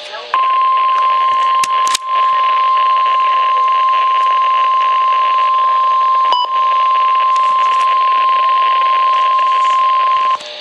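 NOAA Weather Radio 1050 Hz warning alarm tone from a weather radio receiver: one steady, loud tone lasting about ten seconds over a hiss of static, dipping briefly twice and cutting off just before the end. It signals that a warning message is about to be broadcast.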